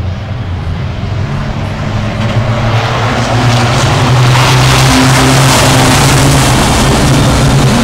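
A pack of racing trucks' diesel engines accelerating past at a race start, growing louder over the first few seconds and then holding as one loud, steady drone.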